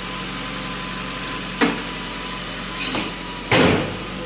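A steady engine idle with three short knocks, the last and loudest about three and a half seconds in.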